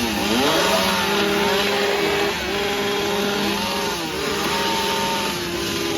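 Two-stroke chainsaw engine revving up and down over and over, its pitch swinging between held high notes and brief dips.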